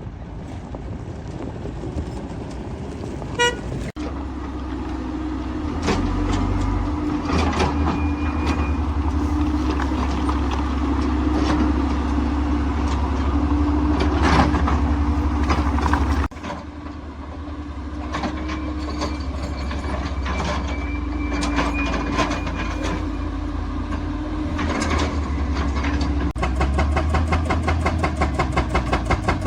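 Heavy construction machinery running: a low engine drone with a steady hum over it and scattered metallic knocks and clanks. The sound changes abruptly a few times, about 4, 16 and 26 seconds in.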